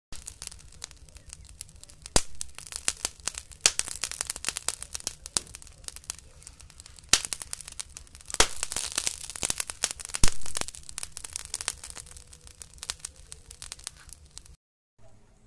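Wood fire crackling, with many irregular sharp pops, the loudest about two, seven, eight and a half and ten seconds in. It stops abruptly near the end.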